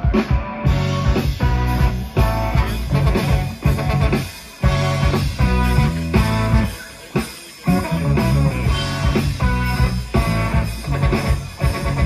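Live rock band playing an instrumental passage: electric guitars, bass and drum kit with a trombone, with a short drop in loudness about seven seconds in.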